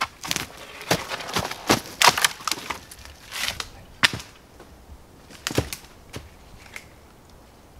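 Dry dead branches and twigs cracking, snapping and knocking as a branch is carried through the brush and laid onto a stick-built debris shelter, with footsteps on snowy, twig-covered ground. The cracks come thick and irregular at first, one sharp loud crack about four seconds in, then thin out after about six seconds.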